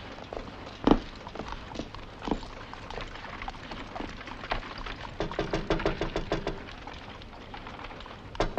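Horse hooves and a horse-drawn carriage: scattered clops and wooden knocks, with a quick run of rattling pulses over a low tone a little past the middle.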